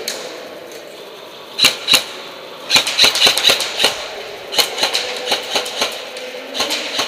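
Sharp clicks and knocks ringing in a large hard-floored hall: a pair about a second and a half in, a quick cluster near three seconds, then a steady run of about three a second.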